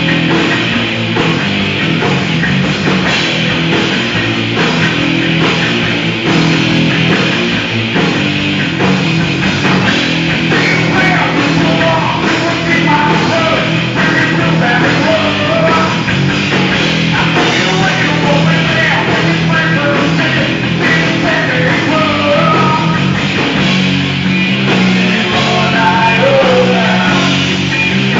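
Live thrash metal band playing loud: distorted electric guitars over bass and a pounding drum kit.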